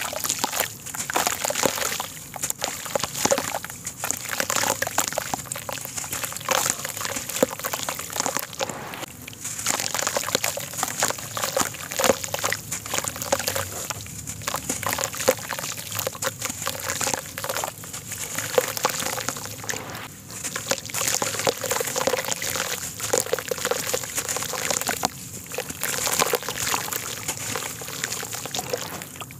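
Hands squeezing and crumbling a wet lump of sandy soil into a basin of muddy water: gritty crackling, sloshing and splashing as clumps break off and drop into the water. The sound is continuous and uneven.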